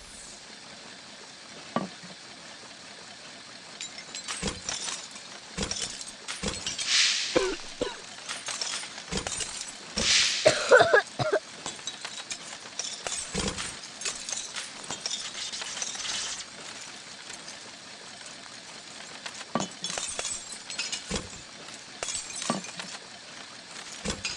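Material being shredded: irregular cracking, snapping and crunching over a steady hiss, with the loudest crunches about seven and ten to eleven seconds in.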